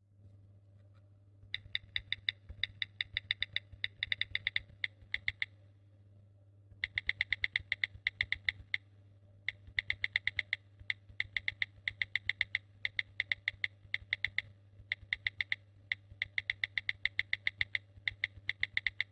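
Smartphone on-screen keyboard key clicks, fast typing at several taps a second, in bursts of a few seconds with short pauses between, over a faint steady low hum.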